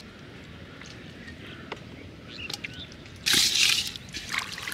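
Muddy water sloshing in a plastic basin of live catfish, with small drips and ticks, then a loud splash a little after three seconds and another shorter one near the end.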